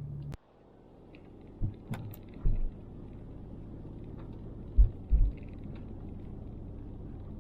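Inside a car: a click as a steady low hum cuts off, then road and engine noise builds as the car gets moving, with several low thumps, two of them close together near the middle, over a steady low rumble.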